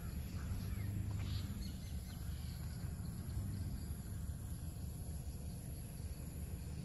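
Outdoor ambience: a steady high-pitched insect drone, a few bird chirps about a second in, over a constant low rumble.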